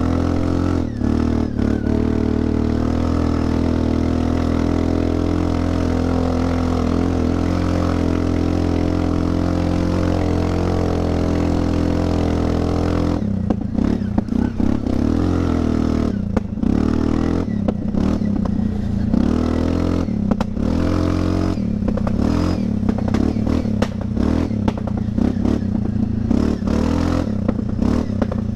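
Linhai 400S Dragonfly ATV's single-cylinder engine running through a cheap replica Akrapovic aftermarket exhaust. It holds a steady pitch for about the first half, then turns choppy, with quick throttle changes over rough trail.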